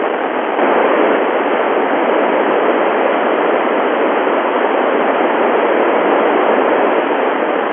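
Steady FM radio static hiss from the Icom IC-9700 transceiver tuned to the ISS crossband repeater downlink, with no voice on the channel. It grows slightly louder about half a second in.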